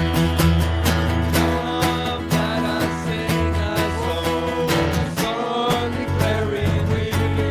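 Live worship band playing: strummed acoustic guitars and a djembe hand drum beaten in a steady rhythm, with a man singing the melody over them.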